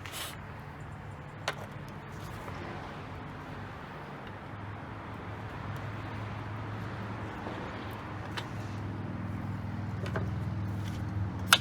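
Steady low machine hum with a single click now and then, ending in a quick run of sharp clicks.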